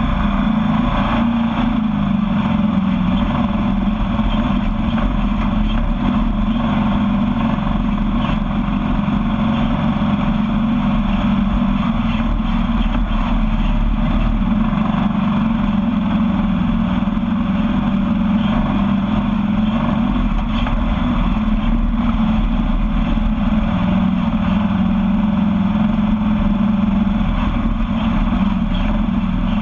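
Sandrail's engine running steadily while the buggy cruises over a sandy dirt track, with no big revving.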